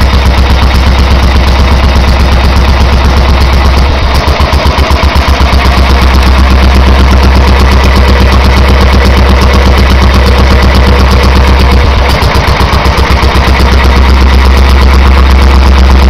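1927 Petter M type 1½ hp stationary engine running loudly and steadily on its first run after a rebuild, belt-driving a dynamo that lights a bank of bulbs. Its beat loosens briefly twice, about four seconds in and again near twelve seconds.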